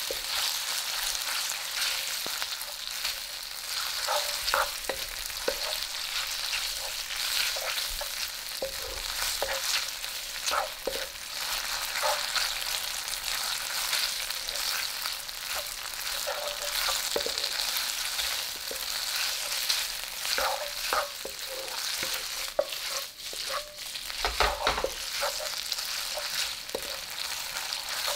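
Shredded pork sizzling in hot oil in a wok while a wooden spatula stirs and scrapes it: a steady frying hiss with irregular scraping strokes.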